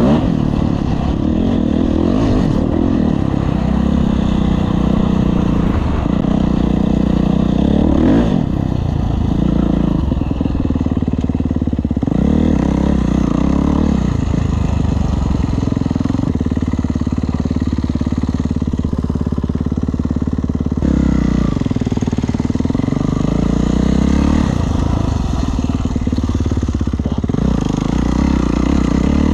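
Kawasaki KX450F motocross bike's single-cylinder four-stroke engine being ridden hard, revving up and easing off again and again. Twice the throttle is chopped sharply.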